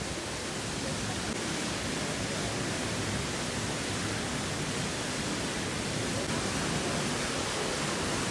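Steady rush of a shallow brown stream pouring over a small concrete weir and churning white below it.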